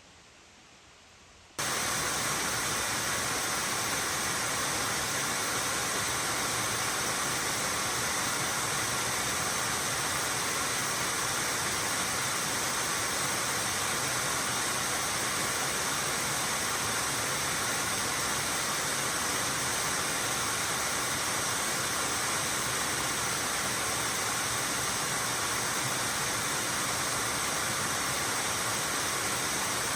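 Steady, even rush of water pouring over a creek cascade. It comes in abruptly about a second and a half in, after a quiet start.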